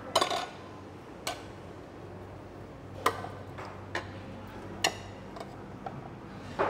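Spoons clinking against small bowls and condiment containers while dipping sauce is dished out: about half a dozen sharp, irregularly spaced clinks, the loudest at the start, over a low steady hum.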